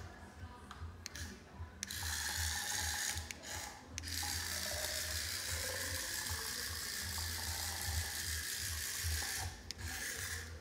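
Remote-control toy cockroach's small geared motor whirring as it is driven. It starts and stops several times, then runs steadily from about four seconds in until near the end.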